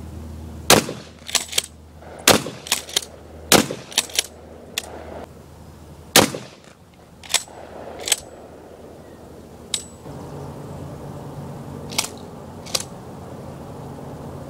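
Shotgun fire: four loud shots in the first six seconds, each followed by quick smaller cracks, then scattered sharp cracks and a few short ringing pings.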